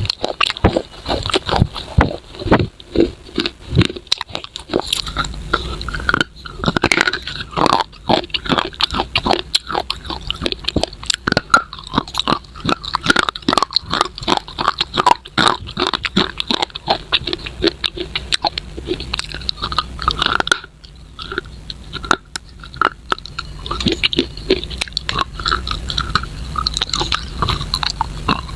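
Close-up biting and chewing of hard, brittle edible clay pieces: a dense run of sharp crunches and crackles, several a second, irregular throughout.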